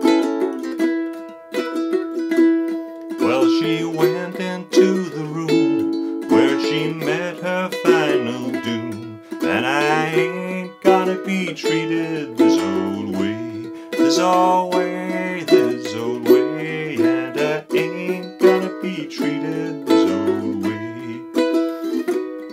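Two concert ukuleles playing together: one, a cocobolo uke, strumming E5, B and A chords; the other picking a clawhammer-style melody. A low, wordless voice hums along with them for most of the stretch.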